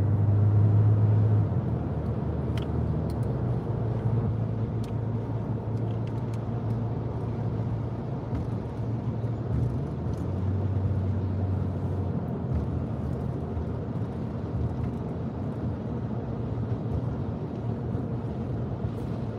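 Steady low rumble of a car's engine and tyres heard from inside the moving cabin. It is louder for the first second or so and again around ten seconds in.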